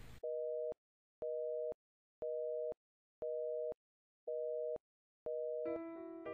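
Telephone busy tone after the call has ended: six even beeps, each about half a second long, one a second. Soft piano music comes in near the end.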